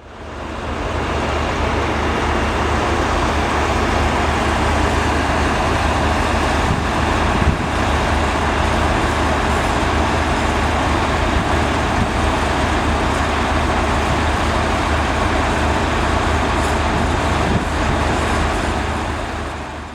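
A vehicle engine running steadily with a deep rumble. It fades in at the start and fades out at the end.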